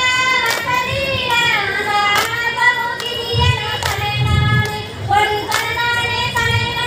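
Women's high voices singing a Tamil kummi folk song, with a sharp hand clap about every 1.7 seconds marking the beat of the dance.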